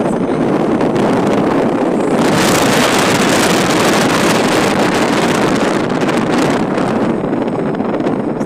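Wind buffeting the microphone on an open moving vehicle, over the rumble of the vehicle and its tyres on the road. The wind grows louder and hissier about two seconds in and eases again after about six seconds.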